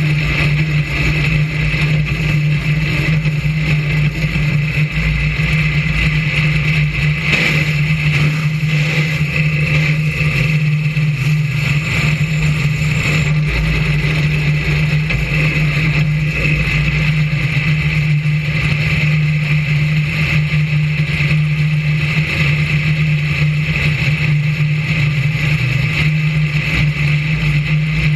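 BriSCA F1 stock car's V8 engine heard from on board, running at a steady, even pitch with no revving.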